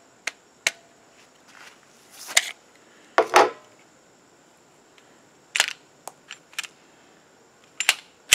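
Polymer 80 Glock 19 pistol being handled to clear a feed malfunction: about ten sharp metallic clicks and clacks from its action, in irregular groups, with two longer rattling clacks a little after two and three seconds in.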